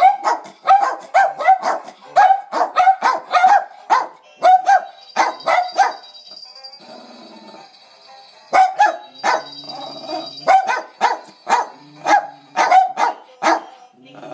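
Two small terriers, a black Scottish terrier and a West Highland white terrier, barking in quick runs of short barks, about three a second. The barking breaks off for about two seconds midway, then starts again.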